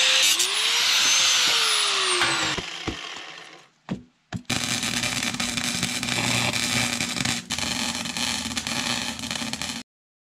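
An angle grinder works on steel, its motor pitch rising and then falling as it winds down about two and a half seconds in. After a few clicks, an arc weld crackles steadily from about four and a half seconds and stops abruptly near the end.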